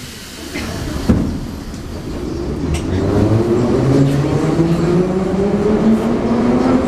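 Moscow metro 81-717.5 train pulling out of a station, heard from inside the car. There is a single clunk about a second in. Then the traction motors give a whine that rises steadily in pitch as the train accelerates, over the rumble of the car.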